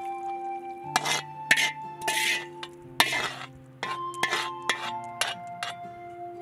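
A ladle knocking and scraping against an aluminium cooking pot as fried meat is spooned in: a string of sharp clinks and short scrapes, several in the middle. Soft background music with held notes plays underneath.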